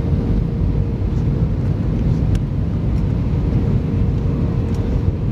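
Steady low rumble of a jet airliner's cabin on approach: engine and airflow noise heard from inside the cabin, with a faint steady hum running under it.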